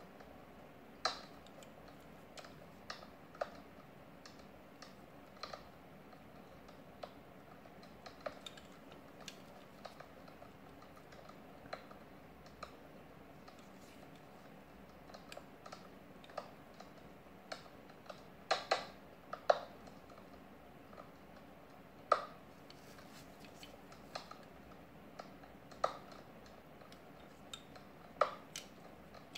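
Light, irregular clicks and taps from gloved fingers handling a 1/64-scale diecast model car, with a cluster of louder clicks about two-thirds of the way through, over a faint steady hum.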